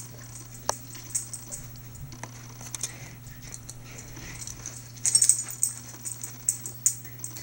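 Cat coughing, a sign of feline asthma: a quick run of short hacks about five seconds in, with a few more over the next two seconds.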